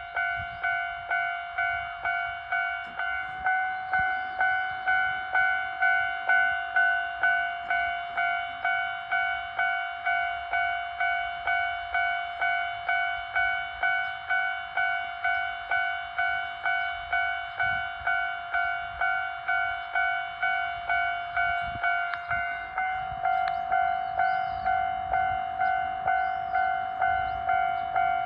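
Japanese railroad crossing warning bell ringing steadily, a bright two-tone ding repeating at about two and a half strikes a second.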